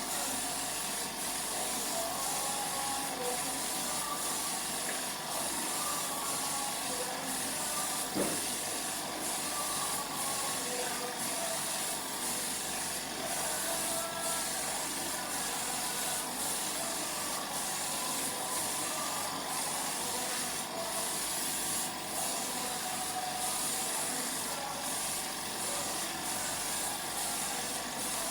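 Air spray gun hissing as clear coat is sprayed, a steady high hiss broken by brief regular breaks that fit trigger releases between passes.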